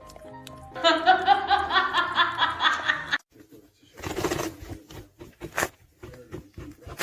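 Background music with a burst of laughter: about a second in, loud pulsing laughs last about two seconds, then breathy, noisy sounds follow after a short pause.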